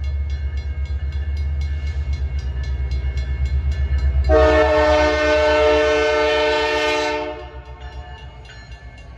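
Canadian Pacific diesel locomotive approaching with a low pulsing engine rumble that grows louder. About four seconds in it sounds its deep horn, several notes at once, in one long blast of about three seconds. After the blast the rumble drops back to a quieter level.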